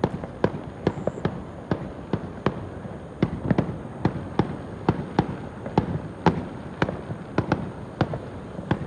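Fireworks going off in a rapid, irregular string of sharp pops, about three a second.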